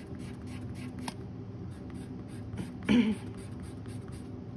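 Prismacolor colorless blender pencil rubbing over colored pencil layers on toned mixed-media paper, burnishing the fur in short strokes. About three seconds in, a brief louder sound stands out.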